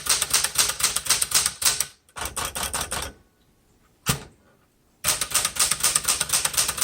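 Manual typing on a 1972 Smith Corona Classic 12 typewriter, a fast run of key strikes. It breaks off for about two seconds, with a single strike partway through the break, then the fast strikes resume about five seconds in.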